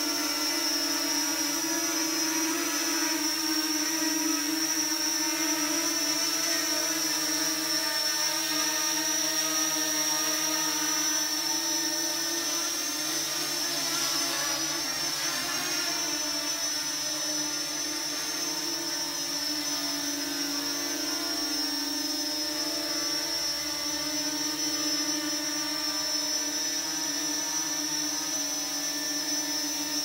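Parrot Anafi Thermal quadcopter flying close by: its motors and propellers give a steady high-pitched whine over a lower buzz, the pitch shifting slightly about halfway through as it manoeuvres.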